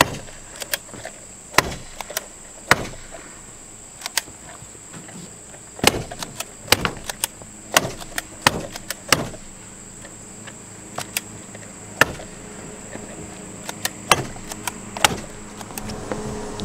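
Irregular sharp knocks, often in quick clusters, from a cap hammer stapler driving cap staples through synthetic roof underlayment into the roof deck. A thin steady high tone runs underneath.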